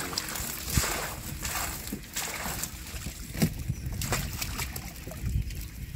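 Water sloshing and splashing as a man wades inside a bamboo-slat fish trap and sweeps a round hand net through it, with a few short sharp splashes and knocks along the way.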